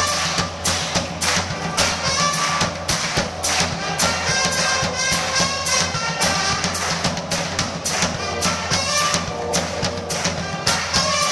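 Live band music with a drum kit keeping a fast, steady beat, about three to four strokes a second, under pitched instrument lines.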